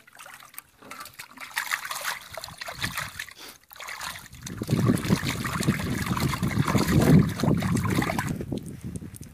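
Water trickling and splashing, growing heavier and louder about halfway through, then tapering off near the end.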